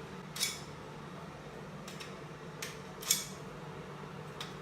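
Kitchen knife blade being sharpened: a few quick, high-pitched metallic scraping strokes, two of them louder, about half a second in and about three seconds in.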